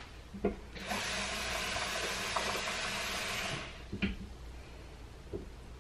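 Kitchen sink tap running water into a bowl for about three seconds, then shut off. A few light knocks come before and after.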